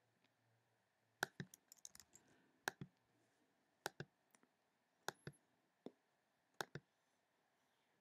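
Computer mouse button clicked five times, each a quick pair of clicks about a second and a half apart, with a few lighter clicks just after the first pair.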